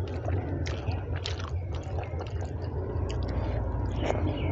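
Eating rice and mutton curry by hand: fingers squish and knead the rice and curry on a steel plate, then a handful goes into the mouth near the end, with wet clicking mouth and chewing sounds. A steady low hum runs underneath.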